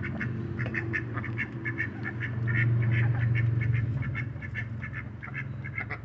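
Hen duck quacking in rapid repeated bursts, several a second, over a low steady hum: she is yelling at her mate.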